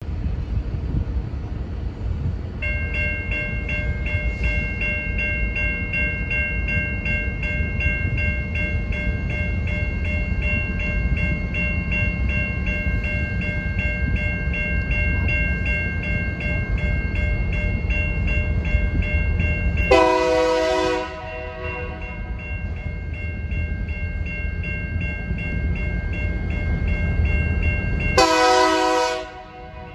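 Diesel locomotive horn, from a CN GP38N leading a freight train, sounding two blasts of about a second each: one about two-thirds of the way in and one near the end. Under the horn there is a steady low rumble, and a steady high-pitched ringing begins a couple of seconds in.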